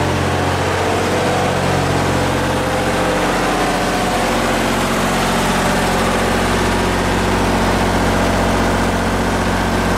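Miller 400D diesel welder-generator engine running at a steady, unchanging speed, a constant low drone, while it supplies power to a house through the shop's back-fed panel.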